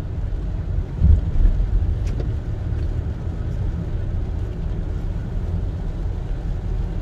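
Car driving on a wet road, heard from inside the cabin: a steady low rumble of engine and tyres, swelling briefly louder about a second in.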